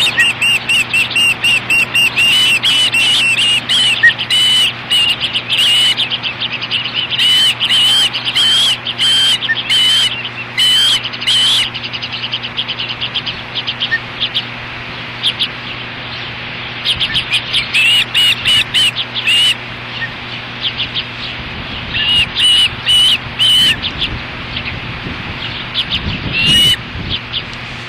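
Ospreys calling at the nest: rapid runs of high, whistled chirps, almost unbroken for the first dozen seconds, then in shorter bursts, over a low steady hum.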